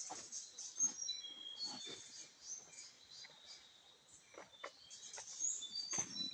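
Birds chirping, many short high whistles and chirps overlapping, with scattered short clicks and knocks between them.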